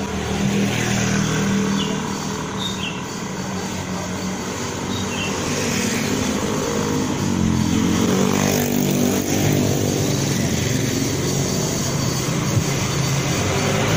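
Road traffic heard from the roadside: several small motorbikes and scooters pass close by with their engines running over a steady traffic hum. One passes about eight seconds in with a falling pitch, and the traffic gets louder in the second half.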